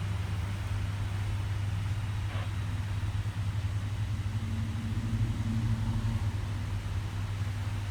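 Vehicle engine idling with a steady low hum, a little louder around the middle.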